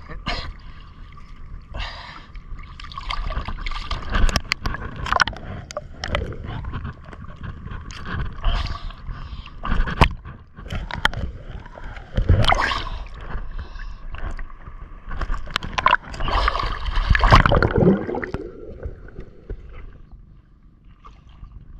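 Water sloshing and gurgling around a small boat, with irregular splashes and knocks.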